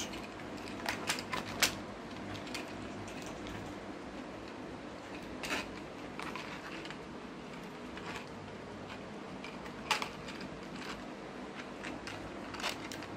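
Hard plastic parts clicking and knocking a handful of times as a 3D-printed chassis is pushed into a toy car's plastic body shell. An electric fan hums steadily underneath.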